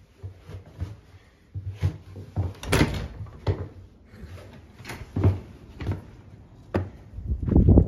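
A back door being unlocked and opened: a string of clicks and knocks from the lock and latch, the sharpest about three seconds in, with a louder rumbling stretch near the end as it swings open.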